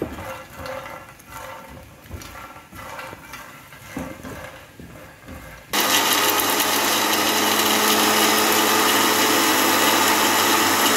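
Panasonic electric mixer grinder running steadily, grinding dry-roasted makhana into powder; it starts suddenly about six seconds in and cuts off near the end. Before it, light irregular scraping and rattling of puffed makhana stirred with a silicone spatula in a nonstick pan.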